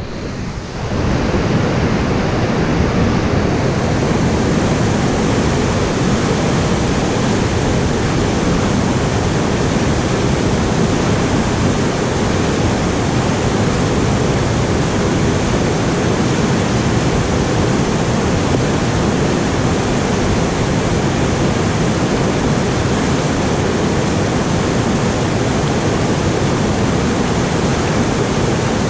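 Whitewater rapid rushing loudly and steadily over rocks, fading in over the first second.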